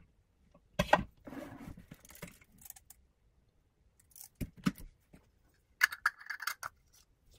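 Handling sounds of kitchenware on a counter: sharp knocks of a plastic food-processor bowl and a glass jar, a stretch of scraping after the first knock, and near the end a run of clicks and scraping as a lid is screwed onto the glass jar.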